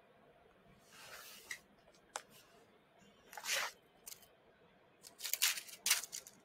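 Paper-and-foil packaging, an alcohol pad packet and a strip of small paper packets, being handled and torn: a series of short crinkling, tearing rasps, the loudest about three and a half seconds in and a quick cluster of them near the end.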